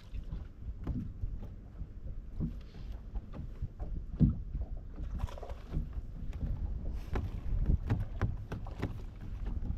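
Water slapping irregularly against a bass boat's hull on a light chop, with wind rumbling on the microphone.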